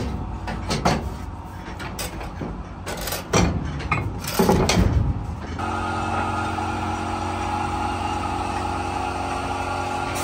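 Irregular knocks and clatter for about the first half, then an engine runs at a steady idle from about halfway on.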